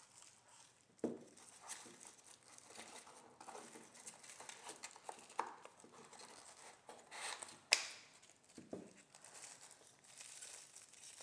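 Faint rustling and crinkling of watch packaging being handled, with a few sharp clicks, the loudest about three-quarters of the way through.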